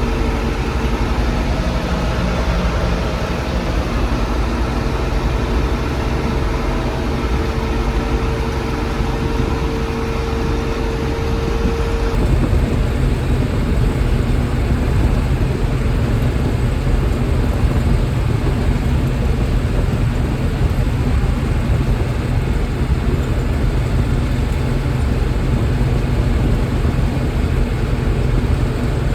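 A vehicle engine running steadily, with a steady whine over it that stops abruptly about twelve seconds in, where the sound changes.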